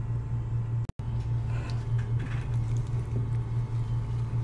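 A steady low hum, with faint scraping of a wire whisk stirring thick peanut-butter pancake batter in a glass bowl. The sound cuts out for an instant about a second in.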